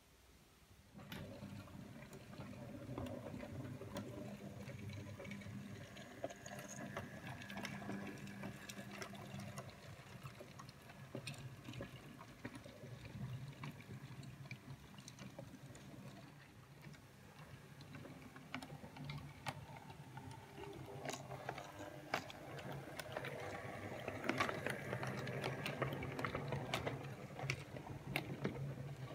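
OO gauge model goods train running, starting about a second in: a steady electric motor hum with the wheels clicking over rail joints and points, the clicking louder in the last few seconds.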